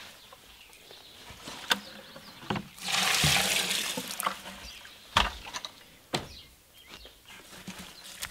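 Water poured from a plastic bucket into a bucket of dry coco coir: a splashing pour of about a second and a half, starting about three seconds in. A few sharp knocks come before and after it.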